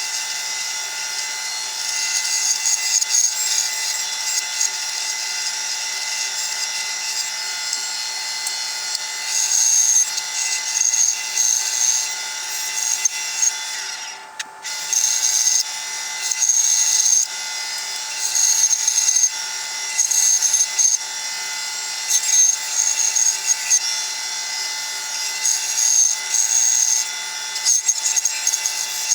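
Bandsaw running steadily while its blade cuts wood. The cutting comes in repeated louder, higher-pitched stretches of a second or so each, with a brief dip about halfway through.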